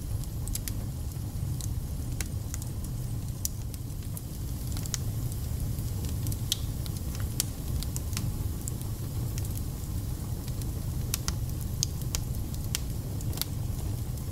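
Wood fire burning in a fireplace: a steady low rumble with irregular sharp crackles and spits.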